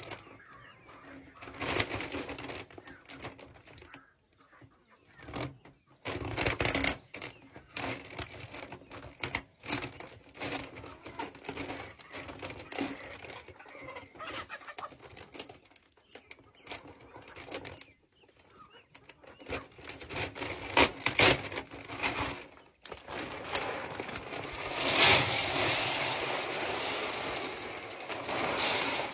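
Chickens clucking amid the clatter and rustle of hands-on chicken chores, with many sharp knocks and clicks; near the end a steadier rushing noise takes over.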